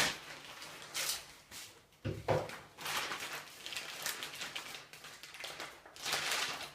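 Plastic packaging rustling and small parts clicking and knocking as fittings are taken out of a bag, with a dull thump about two seconds in and a longer rustle near the end.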